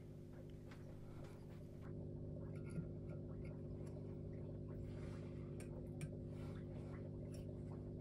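Faint, scattered ticks and scrapes of a steel vernier caliper being slid open and set against the exhaust port of a 13B rotary engine side housing, over a steady low hum.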